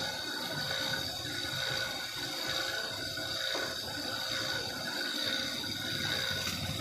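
A steel file rasping across the teeth of a hand saw while the saw is being sharpened, with a continuous grating texture.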